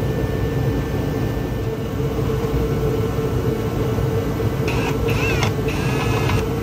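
Steady low background hum, then a cordless driver whirring in three short bursts near the end, its motor whine rising and falling as it runs the oil pan bolts in snug.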